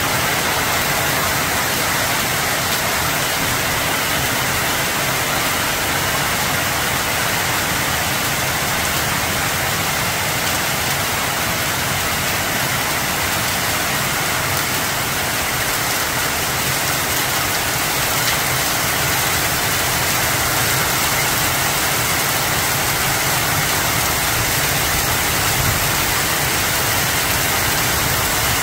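Hailstones and heavy rain pelting down in a steady, dense hiss of countless small impacts.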